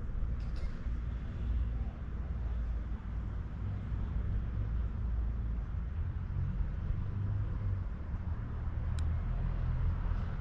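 Low, steady rumble of distant road traffic, with a single sharp click about nine seconds in.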